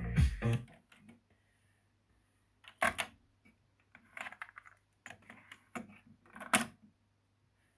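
Music playback cuts off within the first second. Then comes a series of sharp plastic clicks and clacks as the Nakamichi Cassette Deck 1's cassette compartment is opened and the cassette handled, the loudest about three seconds in and again near the end, over a faint steady hum.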